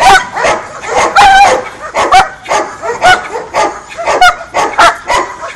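A dog barking fast and repeatedly, about two loud barks a second, while lunging on its leash at a protection-training helper: aggressive barking at the decoy.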